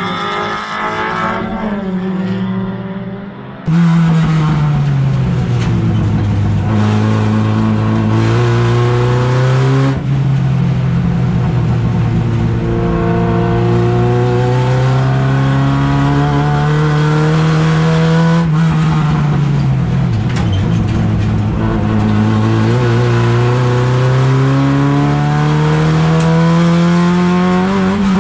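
Race car engine heard from inside its stripped-out cabin while lapping a circuit. The revs climb slowly and drop back at lifts and gear changes, dipping sharply about ten seconds in and again a little past the middle. The first few seconds are a quieter car sound from trackside.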